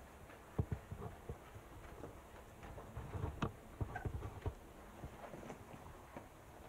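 Irregular light knocks, clicks and low thumps from the person holding a 360 camera on a selfie stick: handling of the stick and scuffing on the rock close to the camera. A few come about a second in, and a denser cluster runs from about three to four and a half seconds in.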